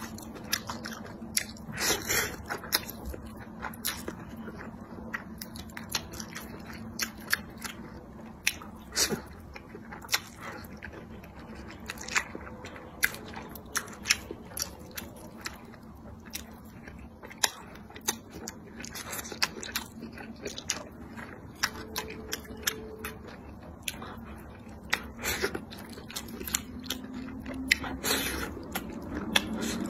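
Close-up wet mouth sounds of eating wide, flat cold noodles (liangpi) in chili oil. There are sharp, irregular lip smacks and clicks, several a second, with chewing between them and a few longer slurps as noodle strands are sucked in.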